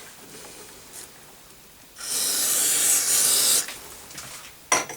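A steady hiss starts sharply about two seconds in and lasts about a second and a half, then a short click near the end.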